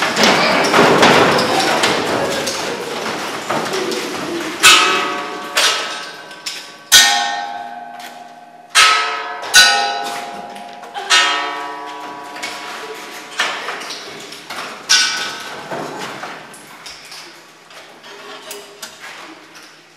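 A run of about eight loud struck notes, irregularly spaced, each ringing out and dying away over a second or so, beginning about five seconds in. A noisy wash fades away over the first few seconds before them.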